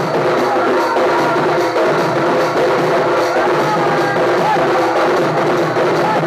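Western Odisha folk drum ensemble playing: a dhol and stick-beaten drums keep a fast, driving rhythm while a mohuri reed pipe plays a wavering melody over them.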